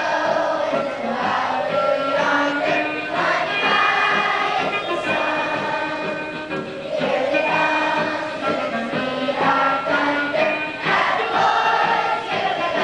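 A choir singing with musical accompaniment, holding long sustained notes.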